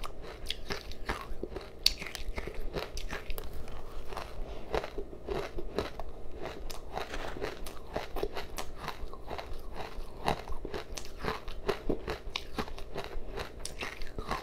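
Close-miked chewing of a mouthful of powdery matcha ice: a dense, continuous run of small crisp crunches.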